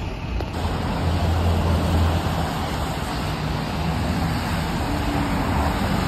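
Steady city street traffic noise: a continuous rush of cars on the road with a low engine hum underneath.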